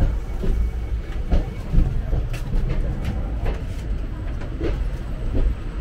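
Moving passenger train heard from inside a sleeper-class coach: a steady low rumble with irregular knocks and clatter from the wheels and coach.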